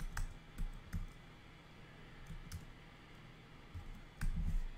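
Computer keyboard keystrokes as a licence key is typed in: a few quick clicks in the first second, a couple of faint ones midway, and a louder cluster of clicks near the end.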